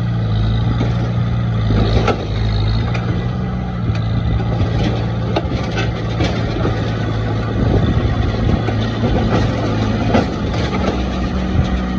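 Heavy diesel engine of earthmoving machinery running steadily under load, with irregular metallic clanks and knocks. The engine note drops a little about two seconds in and comes back up near the end.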